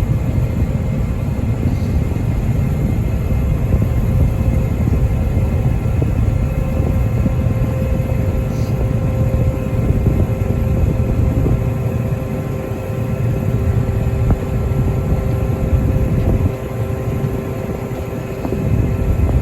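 Combine harvester running steadily while harvesting, its machinery giving a constant hum over a heavy low rumble from wind buffeting the microphone.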